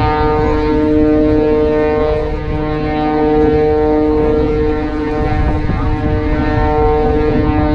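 Steady droning engine with an even hum of several tones and no change in pitch, over low wind rumble on the microphone.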